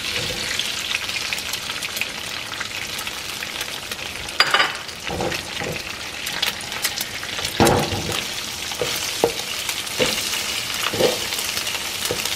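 Eggs frying in hot oil in a metal wok, a steady sizzle, with the spatula knocking and scraping against the pan now and then from about four seconds in.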